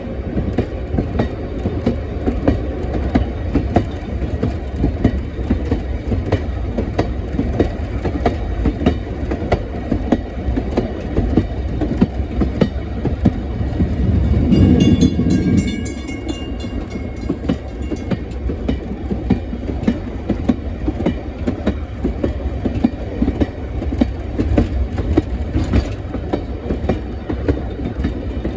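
Train rolling along the track, with steady running noise and a rhythm of wheel clicks over the rail joints. About halfway through, a louder rush swells for a couple of seconds, with a faint high tone over it.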